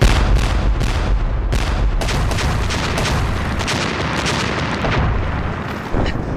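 Artillery barrage: field guns firing and shells bursting one after another in a dense, continuous run of booms and rumble that starts suddenly and eases off near the end.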